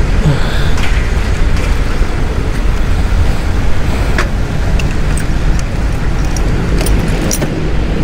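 Riding noise of a Kawasaki Ninja 400 motorcycle on the move: steady wind rush and road noise on the camera microphone, with scattered sharp clicks.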